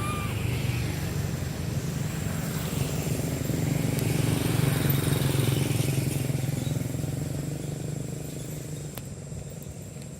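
A motor vehicle's engine running steadily, growing louder toward the middle and fading away as it passes, with a brief high chirp right at the start.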